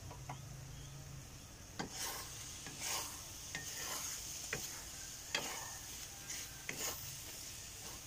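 Wooden spatula stirring egg and sliced sponge gourd in a frying pan, scraping and knocking against the pan in irregular strokes that start about two seconds in, over a faint steady sizzle of frying.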